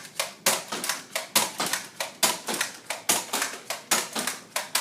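Quick, irregular series of sharp plastic clicks and clacks, about five a second, from a Nerf blaster being worked.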